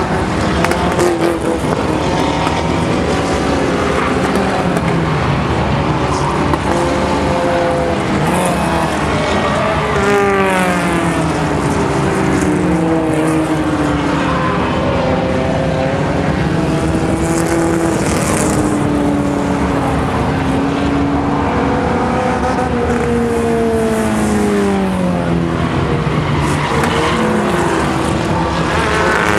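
Several small compact-car dirt-track racers running together, their engines overlapping at different pitches that rise and fall as they accelerate and lift through the turns.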